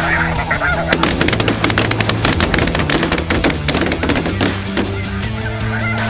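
A huge flock of snow geese calling overhead in a dense, continuous clamor of honks, thickest in the middle, with music playing underneath.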